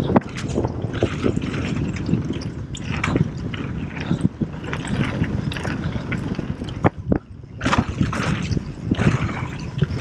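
Mountain bike descending a packed-dirt trail: tyres rumbling over the ground, with the bike rattling and clacking over bumps. There is a brief lull about seven seconds in.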